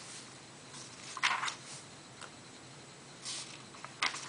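Pages of a paperback book rustling as they are handled and turned: three short, soft swishes, with a small click near the end.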